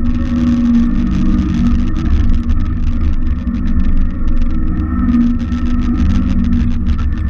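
Simplicity Legacy XL 4x4 garden tractor's engine running steadily, with a dense crackle of small clicks over it.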